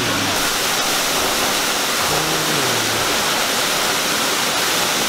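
Artificial rockwork waterfall pouring steadily into a pool, a constant even rush of falling water.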